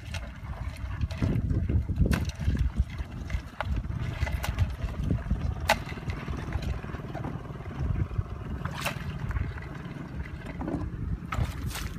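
Crabs being picked out of a muddy pit trap and dropped into a plastic bucket: scattered sharp clacks of shells against the bucket, a few seconds apart with a quick cluster near the end, over a steady low rumble.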